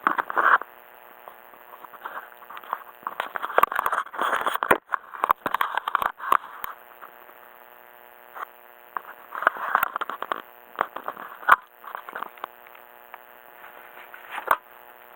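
Öhlins coilover pillow-ball upper mount on a Mazda ND Roadster (MX-5 Miata) creaking and squeaking in irregular bursts, with sharp clicks among them. This is the creak typical of a pillow-ball upper mount.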